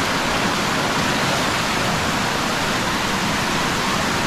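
Muddy floodwater rushing past in a steady torrent: a flash flood running strong with no rain falling.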